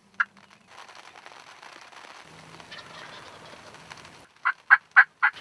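Wild turkey calling: a single short note at the start, then after a few seconds of soft rustling hiss, four loud yelps in quick succession near the end.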